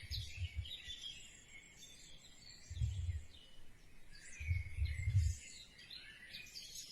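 Faint birds chirping in the background, with a few soft, dull low thuds at the start, about three seconds in and around five seconds.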